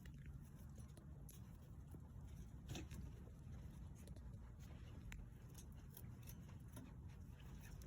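Near silence: a low background rumble with faint scattered ticks and rustles, one a little stronger about three seconds in.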